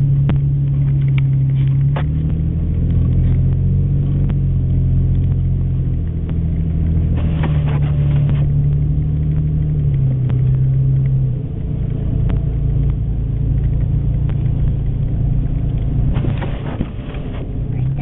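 Toyota FJ Cruiser's V6 engine and drivetrain droning steadily, heard inside the cabin while driving slowly in four-wheel drive; the low drone shifts pitch slightly a few times as the speed changes.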